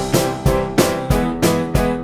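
Music: held keyboard chords over a steady beat, with a hit about every half second.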